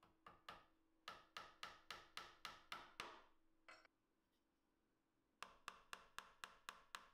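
Small hammer tapping pin nails into glued pine blocks: two runs of light, quick taps about four a second, with a pause of a couple of seconds between them.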